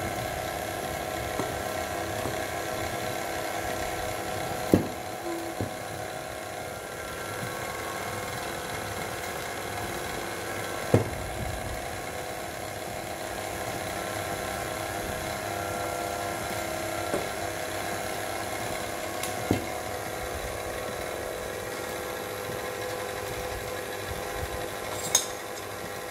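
KitchenAid tilt-head stand mixer running steadily, beating cake batter while flour and the red milk mixture are poured in. A few sharp knocks of metal against the steel mixing bowl, the loudest about five and eleven seconds in.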